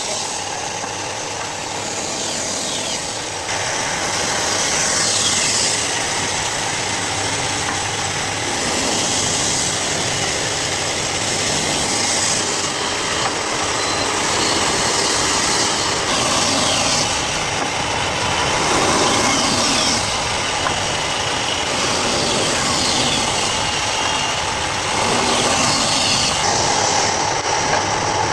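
Wood-cutting saw machine running steadily, with a brighter, harsher sound every three to four seconds as the blade cuts into wood, the pitch dropping slightly under load.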